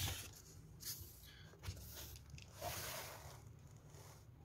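Textbook pages being turned and handled: soft paper rustles in a few short bursts, the loudest at the start and a longer rustle about three seconds in.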